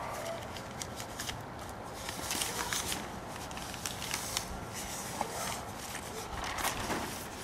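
Plastic sheeting rustling and crinkling as it is handled, in several bursts, with scattered light clicks.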